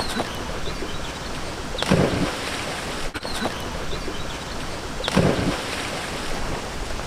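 Steady rushing outdoor noise, with two brief low thumps about three seconds apart.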